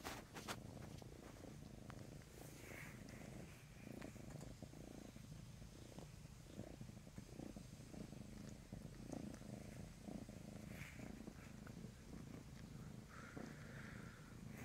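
A domestic cat purring quietly and steadily.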